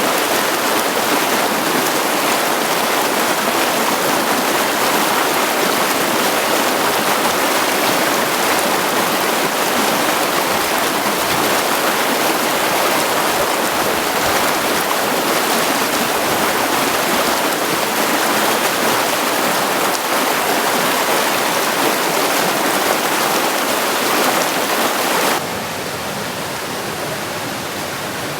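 Rocky mountain stream rushing steadily over stones. About 25 seconds in, the sound cuts abruptly to a quieter, softer rush of water.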